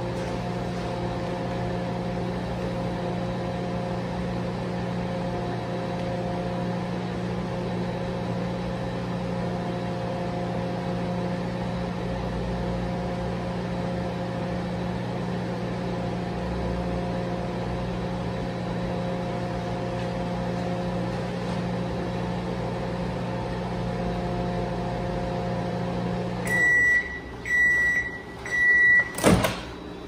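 LG microwave oven, converted into a UV resin-curing chamber, running with a steady electrical hum. Near the end the hum cuts off as the timer runs out, and the oven gives three short end-of-cycle beeps. A sharp click follows as the door is opened.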